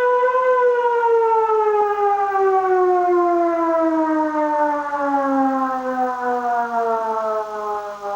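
Civil defense siren holding a steady tone, then winding down: its pitch falls slowly and steadily and it grows quieter near the end.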